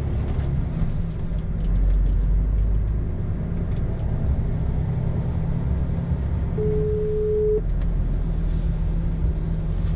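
Lorry's diesel engine rumbling steadily in the cab as the truck rolls slowly. About two-thirds of the way in, a phone gives a single one-second ringback beep: the call is ringing out, not yet answered.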